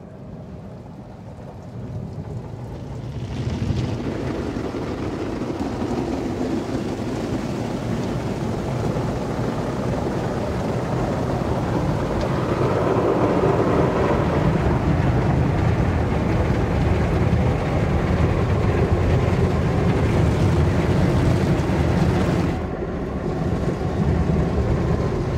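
Automatic car wash heard from inside the car's cabin: heavy spray of water on the roof and windows with a low rumble. It builds up about three seconds in, grows louder about halfway, and drops briefly near the end.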